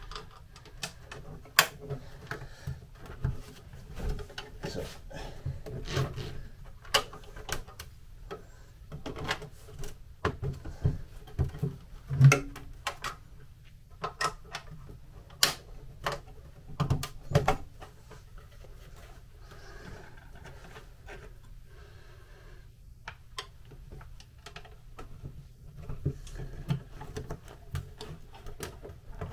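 Clips being pushed onto the edges of a painted metal MGB heater box and the box being handled, giving irregular clicks, knocks and taps.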